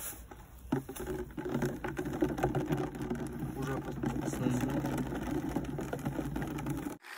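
Plastic bag full of hydrogel water beads crinkling as it is shifted over a plastic bucket, with small clicks and a few beads pattering into the bucket near the end, over a steady low hum.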